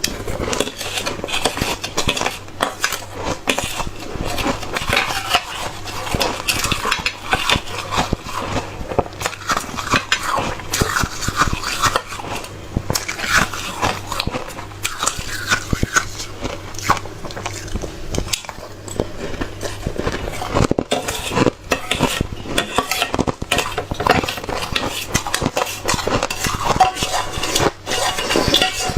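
Spoon scraping and scooping shaved ice against a bowl, mixed with crunchy, squeaky bites of hard, frosty ice being chewed. The crunching and scraping run on in dense, irregular clicks.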